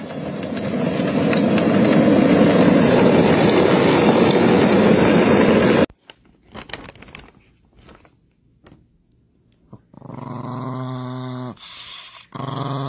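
For about the first six seconds, a loud steady rushing noise from ride-on toy cars running along a road, which cuts off suddenly. After a quiet stretch with a few small clicks, a chihuahua growls: one long, low growl that breaks off briefly and starts again near the end.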